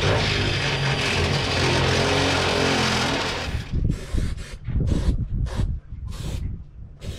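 Cordless drill running as it drills out an existing hole in the boat's wheelhouse wall to a larger size, for about three and a half seconds. After that comes a series of short scraping strokes, about two a second.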